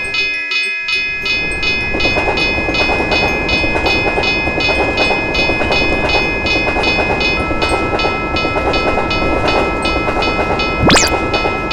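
Railroad crossing bell ringing steadily, about four strikes a second, over the rumble and clatter of a passing train. The rumble drops out briefly just after the start, a steady tone joins about two-thirds of the way through, and a fast rising sweep comes near the end.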